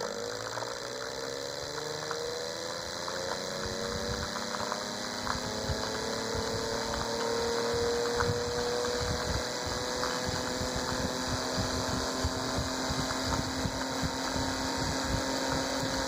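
Small 3D-printed Bedini-style pulse motor, a magnet rotor driven by a bifilar coil, spinning up: its whine rises in pitch over the first several seconds, then levels off at a steady speed. Underneath is a rushing and buffeting of the air the rotor moves.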